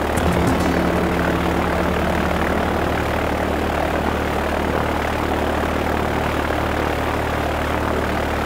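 Light high-wing propeller plane's engine running steadily under a constant rush of noise, heard from inside the cabin.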